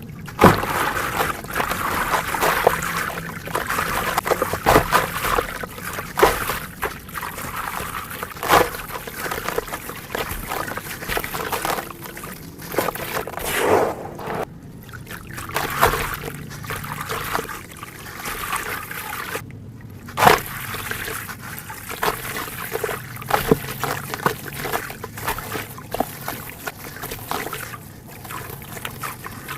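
Leaf-shaped pieces of red dirt and coal being crushed and crumbled: an irregular gritty crackle broken by sharper snaps throughout.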